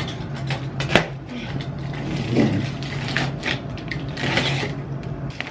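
Large cardboard box being handled and shifted: rustling and scraping of cardboard with a few knocks, the sharpest about a second in, over a steady low hum.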